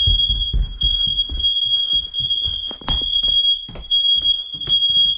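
Interconnected smoke alarms sounding a continuous shrill high-pitched tone on a system test, kept going by a test button held down, with low rumbling and knocks of movement beneath.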